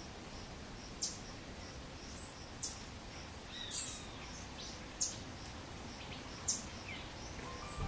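Birds chirping over a steady background hiss: five short, sharp high chirps about every second and a half, with faint, rapid, evenly repeated peeps underneath.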